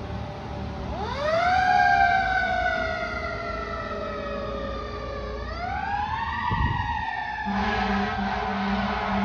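Fire engine's siren winding up, its pitch rising quickly and then sliding slowly down, and winding up again about halfway through. About two-thirds of the way in a steady air horn blast starts under it and keeps sounding.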